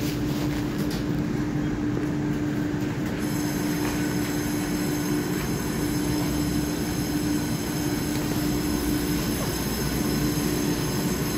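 TRA EMU3000 electric multiple unit standing at the platform with its doors open, its onboard equipment giving a steady hum. A thin, high-pitched whine joins about three seconds in and holds steady.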